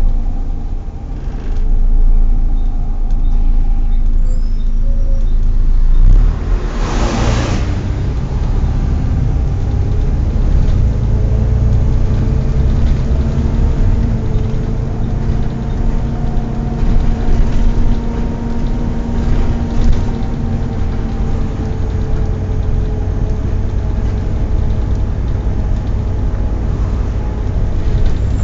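Volvo B7TL double-decker bus's diesel engine running as the bus drives along, a heavy low rumble with a steady whine over it. A short hiss of air about seven seconds in.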